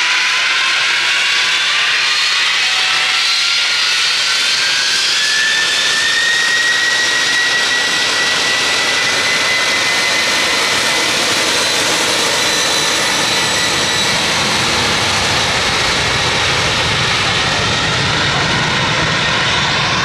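United Boeing 747-400's four Pratt & Whitney PW4000 turbofans spooling up to takeoff thrust: a rising whine over the first several seconds that then holds steady, with a low rumble of jet blast growing near the end.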